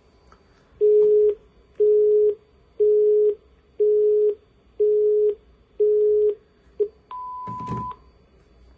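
Telephone tones: six steady mid-pitched beeps, each about half a second long and coming about once a second, a very short seventh, then a longer, higher-pitched beep with a clunk under it near the end.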